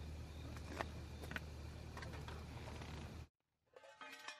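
Portable gas camping burner running with a steady low rumble, with a few sharp crackles, cutting off abruptly about three seconds in. A short burst of music follows near the end.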